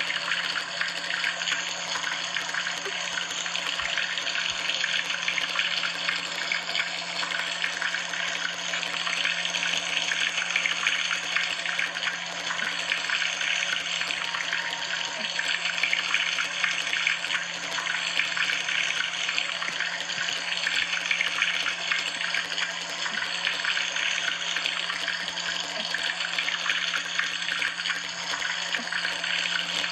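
Steady rush of running or falling water, unbroken throughout, with a steady low hum underneath.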